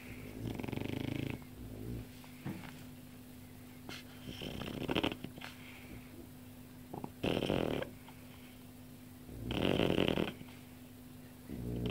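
A sleeping pet snoring: about five rasping snores, each about a second long, coming every two to three seconds.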